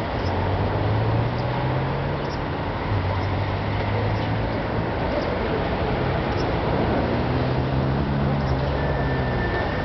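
Steady city street traffic noise, with the low hum of vehicle engines coming and going.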